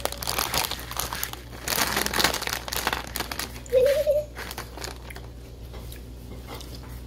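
Plastic candy bag crinkling and crackling as it is handled, busiest in the first few seconds and lighter after. A child makes a short hum about four seconds in.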